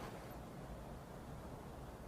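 Faint, steady background noise: a low rumble and a soft hiss, with no distinct event.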